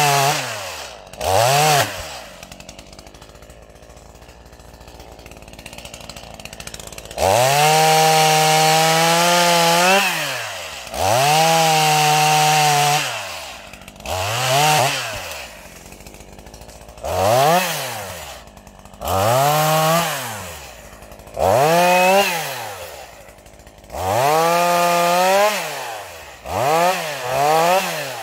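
Stihl MS 212 two-stroke chainsaw repeatedly revved up and let back down to idle, about nine times. Some revs are held at full speed for two to three seconds, others are short blips, with a longer stretch at idle early on.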